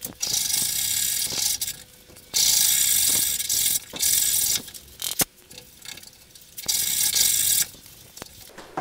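The rough side of a woodworking rasp scraping along the back of a wooden guitar neck, cutting facets into the carve. It goes in about five hissy strokes of roughly a second each with short pauses between, and there is one sharp knock a little after five seconds in.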